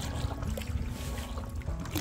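Canoe paddling: paddle strokes and water lapping and dripping around the hull, with low wind rumble on the microphone and faint music with held notes underneath.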